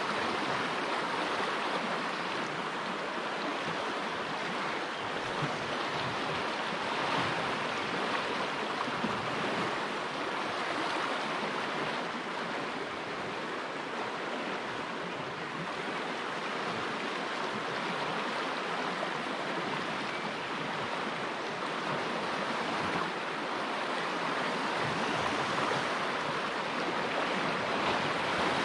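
Fast river current running over rocks and riffles: a steady rush of moving water.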